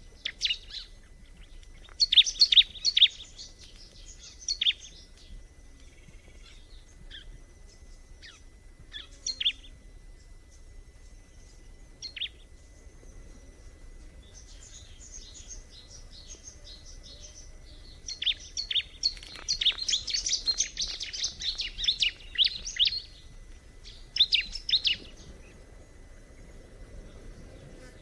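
Bar-winged prinia (ciblek) singing: bursts of quick, high, sharp chirping notes, scattered through the first half, then a long dense run of song about two-thirds of the way through and a short burst after it.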